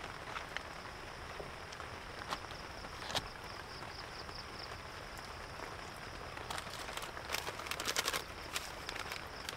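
Steady rain hiss with scattered single drips, and a short spell of dense rustling and crackling about seven to eight seconds in.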